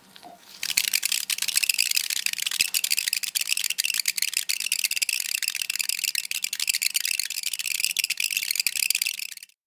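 Hydrogel beads bouncing on a hot frying pan, giving off a high-pitched shriek laced with rapid crackling clicks. It starts abruptly about half a second in and cuts off suddenly near the end.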